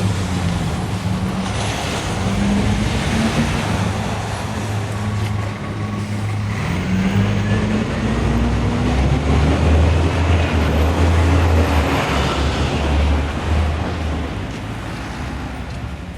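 Road traffic, with a large motor vehicle's engine running close by; its engine note rises about six seconds in, then the sound eases off near the end.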